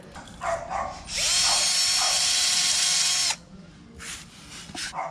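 Bosch cordless drill spinning a wire brush against a rusty steel balcony railing, scouring off rust and flaking paint. The motor whine rises as it spins up about a second in, holds steady with a harsh scraping noise for about two seconds, then stops.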